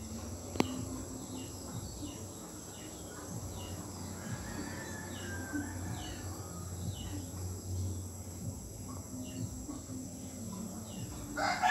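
Outdoor ambience: a steady background with short, high, falling chirps repeating about once a second and a single sharp click about half a second in. Right at the end a rooster starts to crow.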